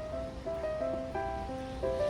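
Background music: a light melody of short, clear notes stepping up and down.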